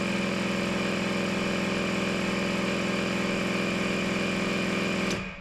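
Small 12-volt electric air compressor of a helper-bag kit running with a steady, loud hum as it pumps the air helper bags past 50 psi. It cuts off suddenly about five seconds in.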